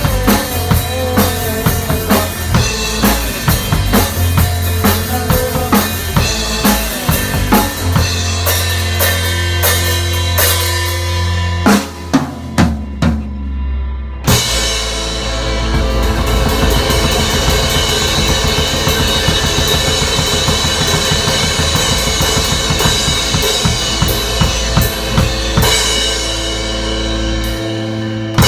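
Music led by a drum kit with bass drum and snare over a steady low bass line. About twelve seconds in it breaks down to a few isolated hits with the high end dropped out, then comes back fuller and denser.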